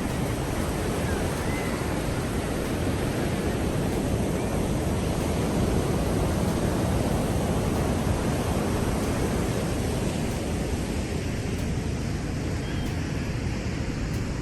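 Rough sea surf: heavy waves breaking and rushing in a steady, dense low rumble that swells a little louder around the middle.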